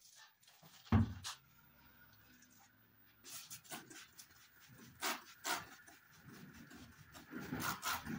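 Hand spray bottle misting the hair in several short hissing squirts. There is a sharp thump about a second in, and soft clicks and rustling of comb and scissors near the end.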